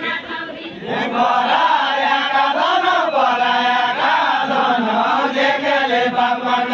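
Deuda folk song sung in unison by a group of voices, unaccompanied, with long wavering held notes. The singing starts about a second in.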